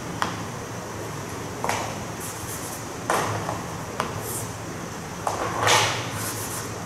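Chalk on a blackboard while equations are written: a few sharp taps and short scratchy strokes, with a longer, louder scrape about six seconds in, over a steady low room hum.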